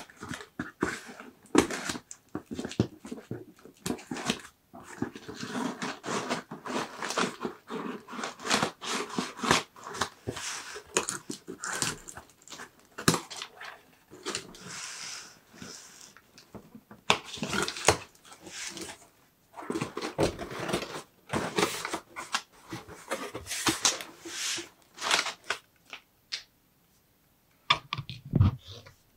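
Scissors cutting through the packing tape of a cardboard shipping box and the box being handled and its flaps pulled open: irregular scraping, rustling and tearing with sharp clicks.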